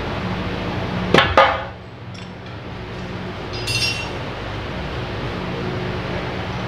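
Metal parts being handled on a workbench: two sharp clinks about a second in, then a short, high metallic ting near four seconds, over a steady low hum.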